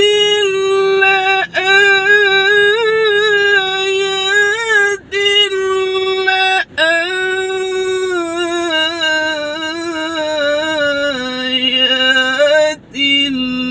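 A man's melodic Quran recitation, holding the long drawn-out vowel of "la-āyāt" with ornamented wavering turns. Short breaks for breath come about 1.5, 5 and 7 seconds in, and the pitch steps down near the end.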